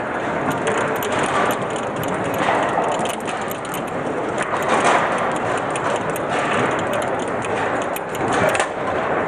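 Foosball play on a Lehmacher table: repeated sharp clicks and clacks of the ball striking the plastic players and the table walls, with the rods knocking, over a steady background din.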